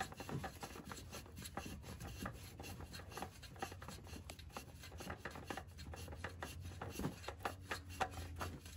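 Spin-on oil filter being turned off by hand: scattered faint rubbing and scraping of an oily hand on the filter canister, over a low steady hum.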